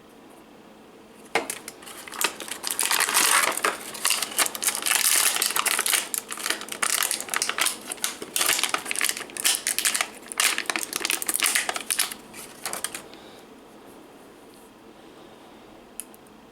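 Plastic toy packaging crinkling and crackling as it is handled and opened, a dense run of irregular crackles starting just over a second in and stopping a few seconds before the end.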